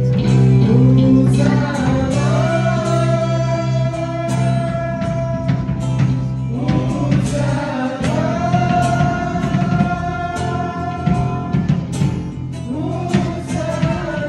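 Worship band rehearsing: singing with long held notes over guitars and a steady beat. The music comes in suddenly at the start.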